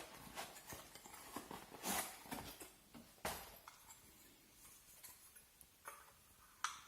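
Faint handling noises as a folding camping gas burner and its carry case are handled: scattered light clicks and rustles, the loudest about two and three seconds in.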